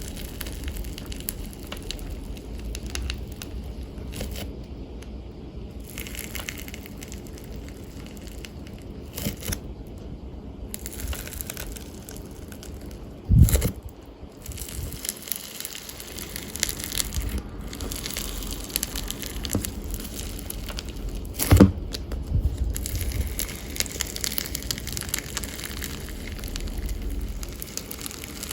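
Slime being squished and stretched by hand, giving a continuous crackling and popping. Two louder dull thumps come about halfway and again about two thirds of the way through.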